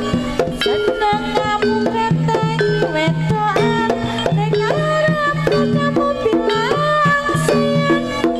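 Live Javanese jaranan music without singing: hand drums keep a quick rhythm under a sliding melodic lead and held low bass notes.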